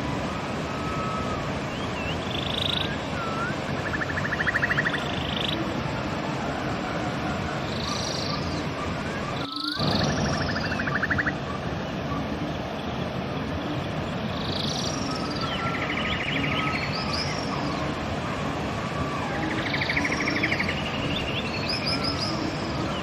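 Steady rushing of a river, with small birds singing over it: short whistled calls and quick trills, repeated every second or two.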